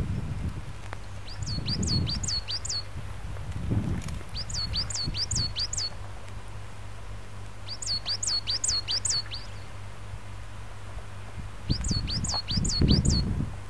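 A small songbird singing a short phrase of about five quick, high notes, repeated every three to four seconds, four times. Bursts of low rumble sit underneath, loudest near the end.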